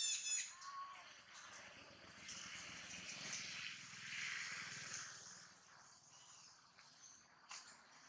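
A short, high-pitched animal call right at the start. Then a steady outdoor hiss of forest ambience, with a faint low hum underneath it for a few seconds.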